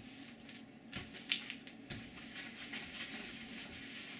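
Cloth rubbing over a paper photograph, smoothing it onto card in small strokes: a run of soft, uneven swishes, with a couple of sharper rustles about a second in.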